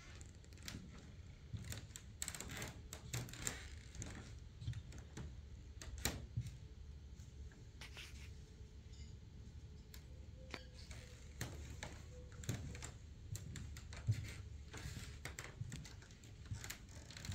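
Faint, irregular light clicks and knocks scattered through a quiet room, over a steady low hum.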